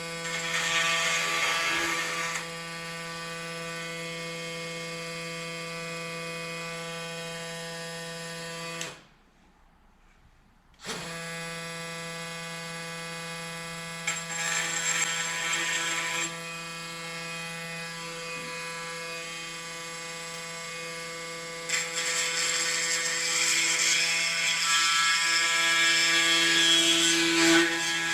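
Milwaukee oscillating multi-tool running with a steady high hum. It bites into the work in rougher, louder stretches near the start, around the middle and through the last few seconds. It is switched off for about two seconds partway through and then started again.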